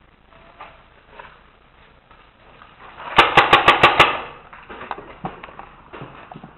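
Paintball marker firing a quick string of six shots, about six a second, lasting about a second, in the middle.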